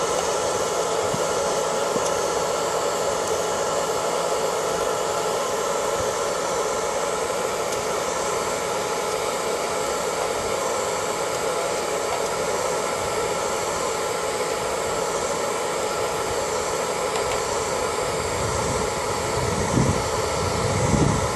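Hair dryer running steadily, an even rush of blown air with a faint steady whine, as it heats a PVC heat-shrink sleeve onto an 18650 battery cell. A few low rumbling gusts come near the end.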